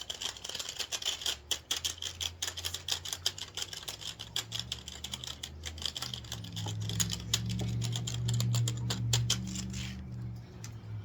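Trading cards being thumbed through, a fast, dense run of light clicks that stops about ten seconds in. A low hum comes in about halfway through.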